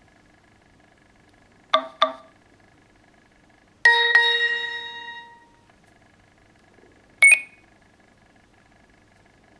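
Nokia X7 stock phone tones: a quick double blip about two seconds in, then a single bell-like chime that rings out and fades over about a second and a half, and a short high blip near the end.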